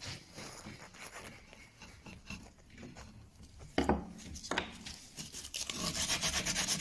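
Sandpaper rubbed by hand over a white-painted wooden table leg, faint at first, then quick, even back-and-forth strokes getting louder over the last couple of seconds. Two knocks come around the middle.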